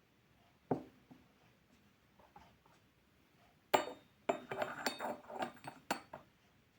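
A small porcelain teapot being handled: a soft knock, then a run of quick clinks and taps of porcelain on porcelain or a hard surface, each with a short bright ring.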